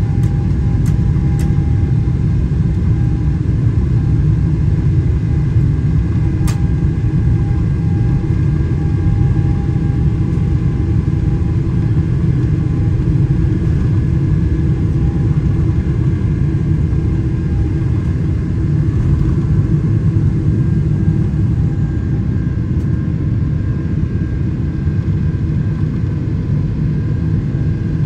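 Steady jet engine rumble of a Boeing 777-300ER's GE90 engines, heard inside the cabin during the takeoff phase.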